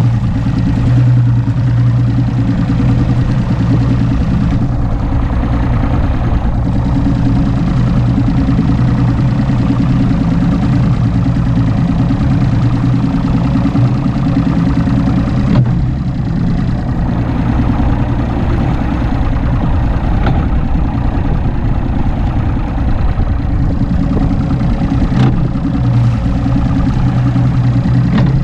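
Mercury Optimax 200 HP V6 two-stroke outboard running steadily at cruising speed, a constant low drone under an even rush of wind and water past the hull.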